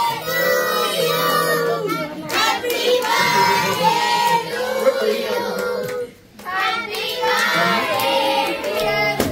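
A group of children singing a birthday song together, clapping along, with a short break about six seconds in.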